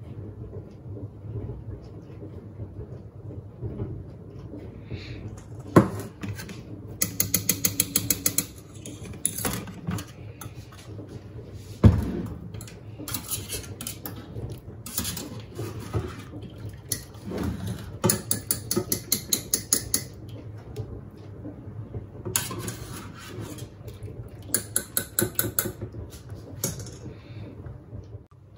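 Wire skimmer scraping and rattling against the stainless steel bowl of a Monsieur Cuisine Connect food processor as cooked chicken livers are scooped out. It comes in several runs of quick, even, ratchet-like clicks, with two sharp metal knocks in the first half.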